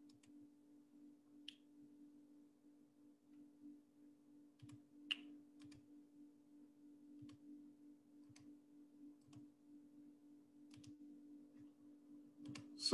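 Near silence with about a dozen faint computer mouse clicks at irregular intervals over a faint steady hum.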